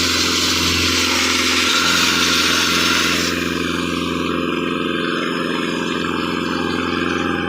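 Heavy rock-drill rig and its air compressor running steadily with a low engine hum, under a loud hiss that cuts off about three seconds in.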